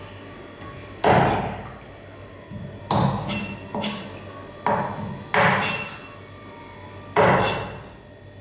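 Steel meat cleaver chopping raw chicken feet on a wooden chopping board: about seven sharp, irregularly spaced chops, the loudest about one second in and about seven seconds in.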